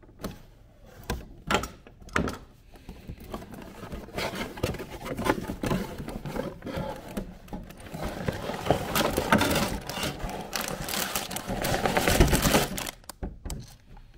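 A cardboard LEGO set box being opened and emptied: a few light taps and clicks at first, then a dense crinkling and rustling of cardboard and the sealed plastic bags of bricks, loudest near the end and stopping about a second before it.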